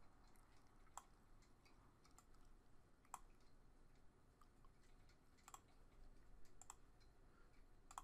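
A handful of faint, sharp, scattered clicks of a computer mouse over near silence.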